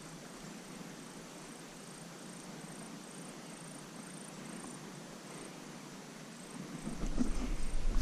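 An insect chirping: a steady train of short, high-pitched chirps, a little over two a second. About seven seconds in, louder rustling and knocks come in over it.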